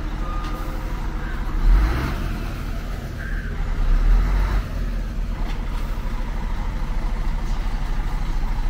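Heavy diesel engine running steadily with a deep rumble, swelling louder twice, about two seconds in and again about four seconds in.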